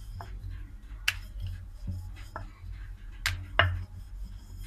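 A wooden rolling pin rolls out paratha dough on a round wooden rolling board, with a few sharp wooden knocks, two of them close together near the end. A low steady hum lies underneath.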